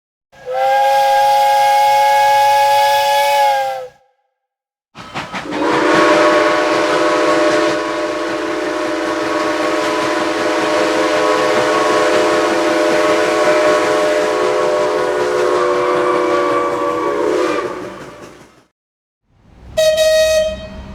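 Train whistles sounding as separate recordings one after another. First a chord of several steady notes held for about four seconds, then a long chord blast of about thirteen seconds over a rush of hiss that fades out at its end. A short single-note blast starts near the end.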